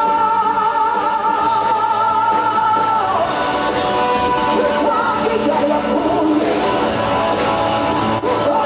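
Live band performance with singing: a singer holds one long note with vibrato for about three seconds, then sings shorter phrases over drums and guitar.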